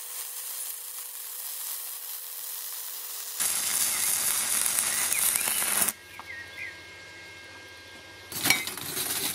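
Stick-welding arc crackling and sizzling as a 2 mm rod electrode burns along a 3 mm steel joint, getting louder about three seconds in and stopping about two seconds later. Near the end a loud scraping starts, with a sharp click.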